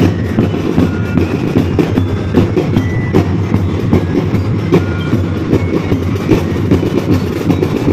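Marching drumline playing a fast, steady rhythm, its bass drums giving deep, rapid strikes.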